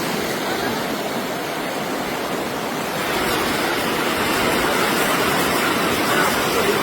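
Floodwater rushing steadily, growing a little louder about three seconds in.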